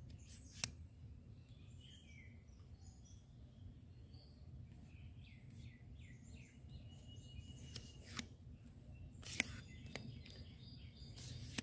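Faint songbirds chirping over steady outdoor background noise, with a few short sharp clicks as a selfie stick is handled.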